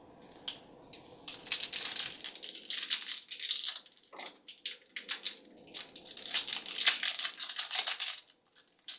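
Plastic packaging being crinkled and torn open by hand, a dense run of crackling that starts about a second and a half in and stops shortly before the end.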